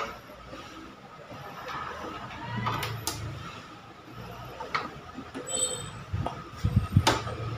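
Scattered knocks and clicks from hands handling the leg and fittings of a wooden flat-pack computer table during assembly. The loudest knock comes near the end.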